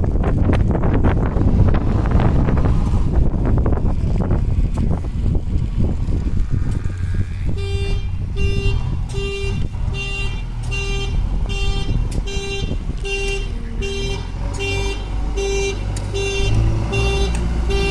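JCB 3DX backhoe loader's diesel engine running under load, with a rough, noisy first half. About halfway through, a reversing alarm starts beeping steadily, roughly once every 0.8 seconds, over the engine.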